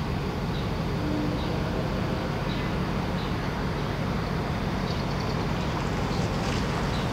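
Steady low rumble of a DRC Sprinter diesel railcar approaching slowly, mixed with the engines of motorcycles and a pickup crossing the tracks in front of it.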